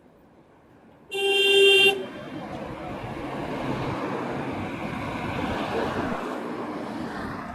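A horn honks once, a single steady note lasting about a second, followed by a steady rushing noise that stops near the end.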